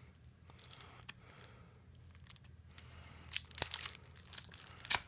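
Clear plastic wrapping on a stack of trading cards being slit with a pocket-knife blade and torn, faint scratching at first, then a run of sharp crinkling tears in the second half.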